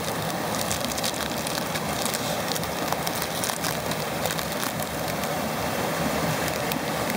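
Steady rush of a waterfall, with a few faint crinkling crackles from a foil trading-card wrapper being torn open.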